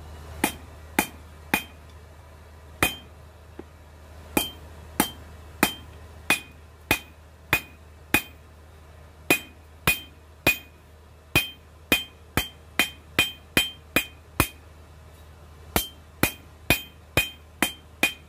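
Hand hammer striking hot coil-spring steel on an anvil while forging a knife blade: a couple dozen blows at about two a second in short runs, each with a short, bright ring.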